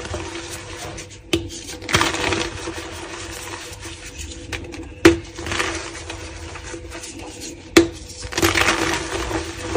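Hands snapping and crumbling blocks of reformed gym chalk: four sharp cracks, the loudest about five seconds in, each followed by a gritty crumbling hiss as the pieces break into powder. A faint steady hum sits underneath.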